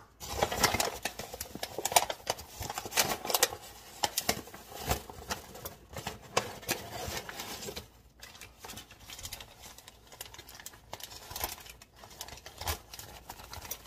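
Kitchen handling noise: rustling and crinkling of a paper flour bag and a clear plastic freezer bag, with irregular clicks and taps as flour is measured out with a cup and the bag is pulled open.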